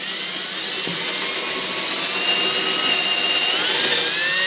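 Cordless drill running continuously as it bores a pilot hole up into the underside of a wooden stair platform. The motor's whine climbs a little in pitch about three and a half seconds in.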